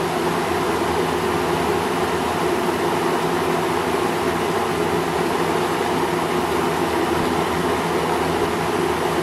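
1975 Kmart K-223 20-inch box fan with a Westinghouse motor running steadily: an even rush of air over a steady motor hum.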